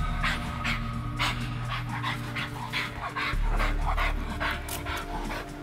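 Bull terrier panting hard and fast, about three rough breaths a second, worked up and straining at its leash to lunge forward.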